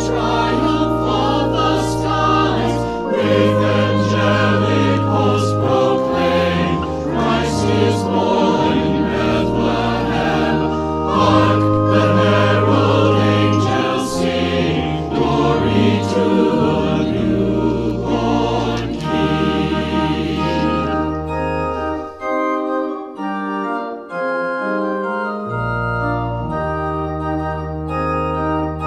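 A choir singing a hymn with organ accompaniment over held low pedal notes. About twenty seconds in the voices stop and the organ plays on alone.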